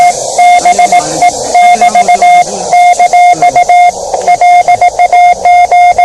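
Morse code (CW) from a Yaesu portable QRP transceiver: one steady beep keyed on and off in dots and dashes, with receiver hiss filling the gaps between elements.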